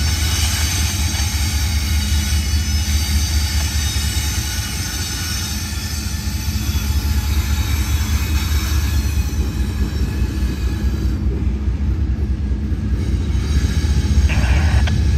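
Two GE diesel locomotives working as mid-train helpers on a loaded coal train, a CSX ES44AH and an AC4400CW, pass over a stone viaduct with a steady engine drone and a deep rumble. The engine sound thins out about two-thirds of the way through, as loaded coal hoppers roll past behind them.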